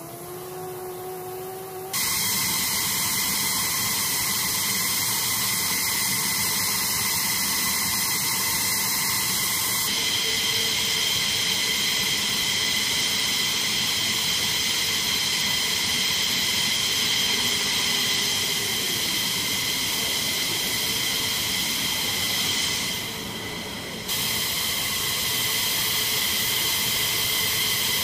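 F-15E Strike Eagle jet engines running on the ground: a loud, steady rushing hiss with several high, steady whining tones. In the first two seconds a lower whine rises in pitch, then the sound jumps abruptly louder, and it dips briefly near the end.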